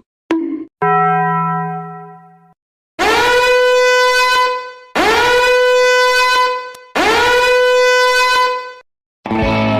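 Meme sound effect of a horn: three long, loud blasts of about two seconds each, each sliding up to a steady pitch as it starts. Just before them come a short click and a fading tone.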